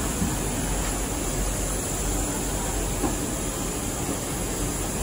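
Steady cabin noise inside a Boeing 737-800 airliner: the hum of engines and rushing air, with a small tap about a quarter second in and another about three seconds in.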